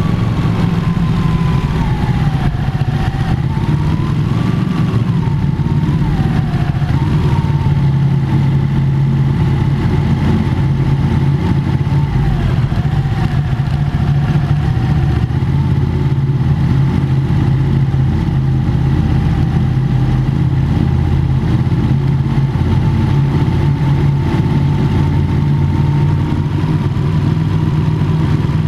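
Motorcycle engine running at a steady cruise inside a road tunnel. Its pitch wavers up and down over the first several seconds, then holds steady.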